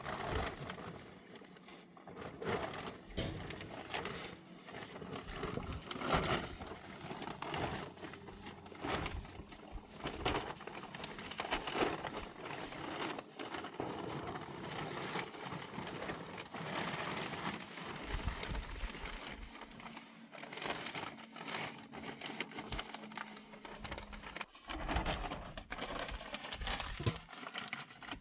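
Irregular rustling, crinkling and light knocks, as of materials being handled, continuing throughout, with a faint steady hum for a few seconds past the middle.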